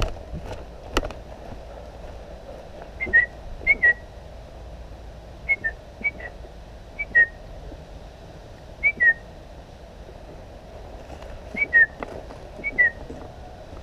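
Short whistled notes at one pitch, most of them in pairs with the second note slightly lower and falling, repeated about eight times at irregular intervals. A couple of sharp clicks come in the first second.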